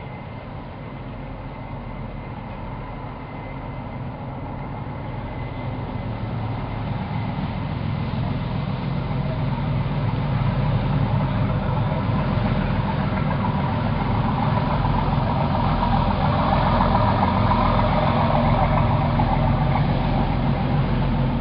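The Arie Visser-class lifeboat's twin diesel engines and waterjets running steadily, growing louder over the first ten seconds or so as the boat manoeuvres closer. Water churning from the jets rises over the engine sound in the second half.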